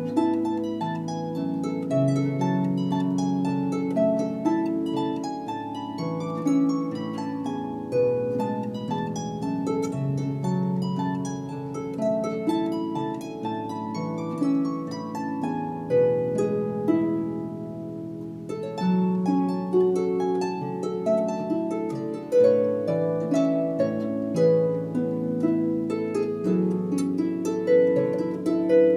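Instrumental background music of plucked-string notes, many overlapping notes each struck and left to ring.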